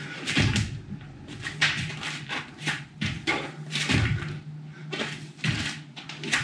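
A man doing burpees barefoot on an exercise mat: irregular thuds and slaps of hands and feet landing, about one or two a second, over a steady low hum.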